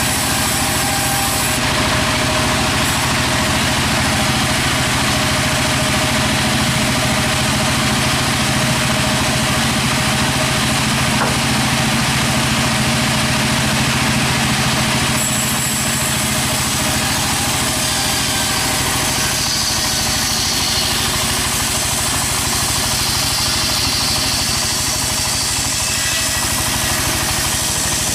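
Sawmill machinery engine running steadily at a constant speed, a loud even hum with a hiss of noise over it. Its character shifts abruptly a couple of times.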